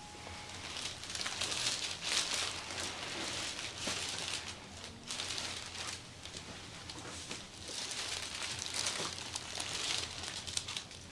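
Hands rubbing and sliding in repeated massage strokes, a soft swishing and crinkling that rises and falls every second or two.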